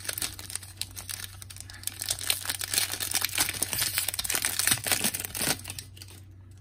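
Foil Panini Donruss 2021-22 Soccer trading-card pack being torn open and crinkled as the cards are pulled out: a dense crackling that is loudest in the middle and stops shortly before the end.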